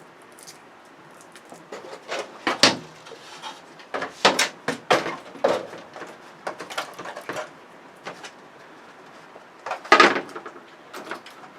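Irregular clicks, knocks and rattles from hands pulling apart and handling a flat-screen television's internal parts and wiring, with the loudest clatter about ten seconds in.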